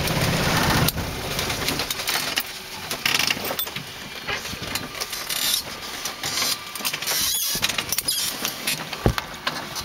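Cessna 185 floatplane's engine running and then cut about a second in, leaving rustling, bumps and knocks as people move about the cabin, with one sharp knock near the end.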